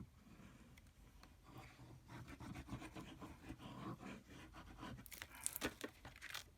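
Faint rustling and scraping of paper and card being handled on a craft desk, with a few sharp taps between about five and six and a half seconds in.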